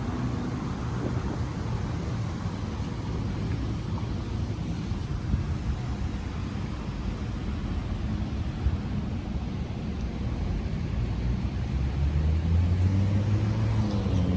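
Road traffic noise: a steady rumble of vehicles, with a motor vehicle's engine getting louder near the end.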